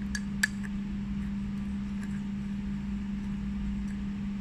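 A glass stirring rod clicks twice against a glass beaker in the first half second while stirring sodium acetate that is dissolving in hot water. Under it runs a steady low hum.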